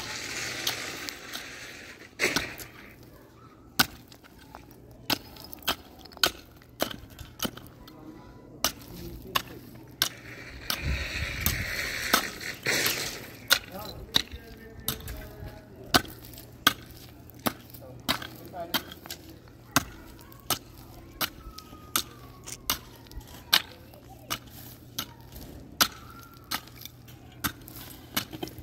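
Repeated sharp knocks of a hand tool striking wood, scattered at first and then steady at a bit more than one blow a second through the second half. Hissing noise comes at the start and again around the middle.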